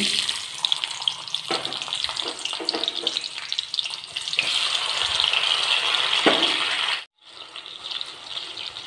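Panch phoron, chopped onion and tomato frying in hot oil in a kadai: a steady sizzle with fine crackling. The sound cuts out briefly about seven seconds in and comes back quieter.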